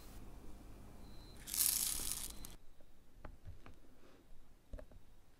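Small round diamond-painting drills rattle out of a clear plastic storage pot in a rush lasting about a second. A few light clicks follow as single drills are pressed onto the sticky canvas.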